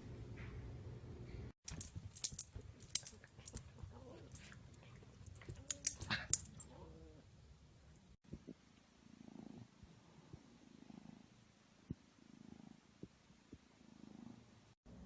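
A kitten purring close to the microphone, in soft low swells that repeat about once a second through the second half. Before it comes a run of sharp clicks and knocks.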